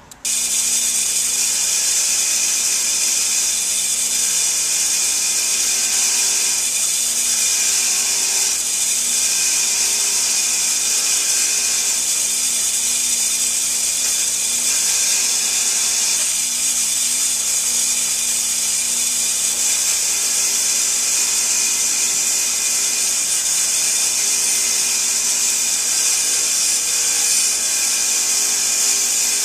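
Delta bench grinder running steadily, its fine wire wheel brushing a small brass temperature sender held against it: a bright, even hiss of wire bristles over the motor's hum. It starts suddenly just after the beginning.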